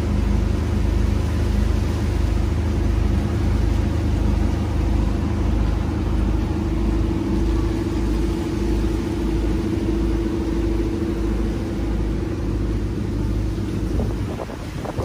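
A motor running steadily: a loud, low mechanical drone with a slow throb. It drops away near the end.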